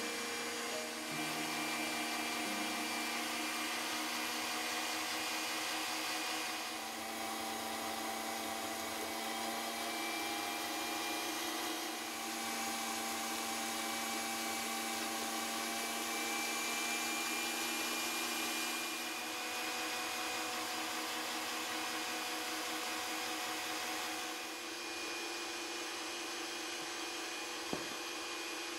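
KitchenAid Artisan stand mixer running steadily with a motor hum, its beater creaming butter and sugar in a glass bowl. A short click near the end.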